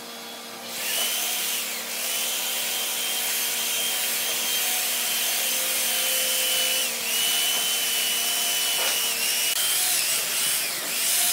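Handheld electric belt sander running over a red hardwood bed-frame rail. It starts up about a second in with a steady high whine, and the pitch and level dip briefly three times as the sander is shifted along the wood.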